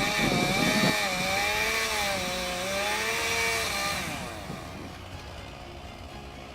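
Chainsaw running at high revs as it cuts, its engine pitch wavering up and down under load, then dropping to a quieter level about four seconds in.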